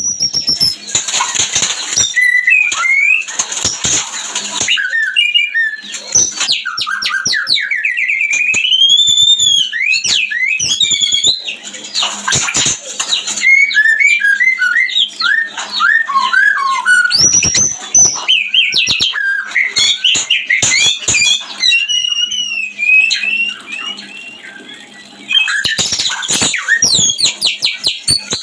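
White-rumped shamas (murai batu) singing and calling while mating: a dense, varied run of whistled notes, rising and falling glides and rapid trills, with a brief quieter stretch near the end.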